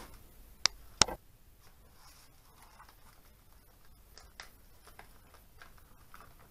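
Two sharp clicks about a second in, then quiet rustling and light ticks of paper gaskets and small plastic parts bags being handled on a workbench.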